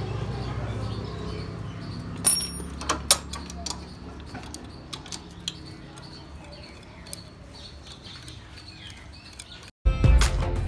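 A wrench clinking against the metal of a motorcycle engine: a few sharp, ringing clinks about two to three seconds in, then lighter ticks, over a low steady hum that fades away.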